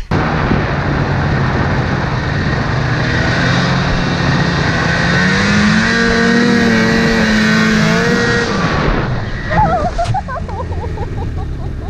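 Ski-Doo Mach 1 snowmobile's two-stroke engine running at speed under the rider, its pitch rising about halfway through. About three seconds before the end the engine sound drops away as the sled ploughs into deep snow and tips onto its side.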